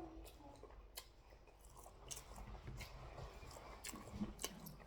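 Quiet close-up chewing, with small wet mouth clicks scattered through it.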